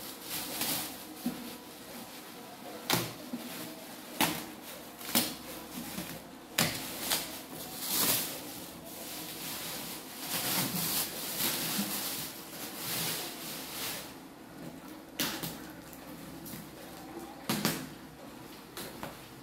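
Plastic packing sheet rustling and crinkling as it is cut and pulled off a cardboard carton, with irregular sharp knocks and scrapes as the cardboard box is handled and its flaps opened.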